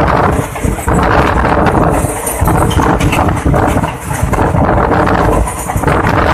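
Passenger train coach running at speed, heard from an open window: a loud, steady rumble and rattle of steel wheels on the rails.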